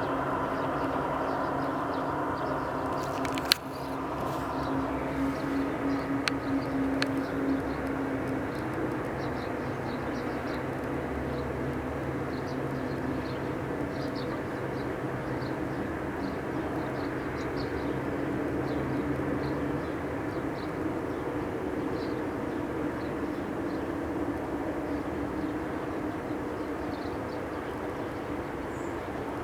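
Unexplained outdoor droning hum made of several steady held tones, the strongest low tone fading about nine seconds in. A single sharp click comes about three and a half seconds in, and faint high chirps sound throughout.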